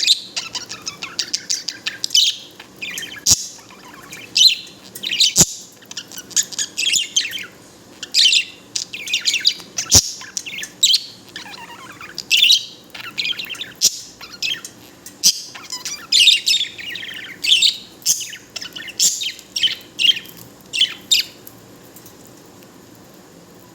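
Budgerigar warbling and chirping in rapid, varied runs, its happy chatter, with a few sharp clicks mixed in; it falls quiet about two seconds before the end.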